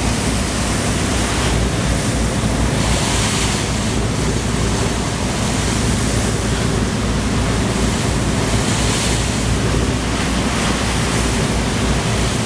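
Water rushing and churning in the wake along the hull of a cruise boat under way, with wind buffeting the microphone and a steady low rumble from the boat beneath. The wind hiss swells briefly a few times.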